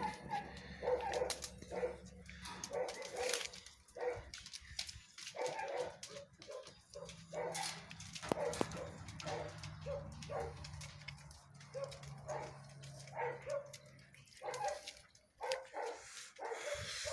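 Dogs barking over and over, short barks following one another closely.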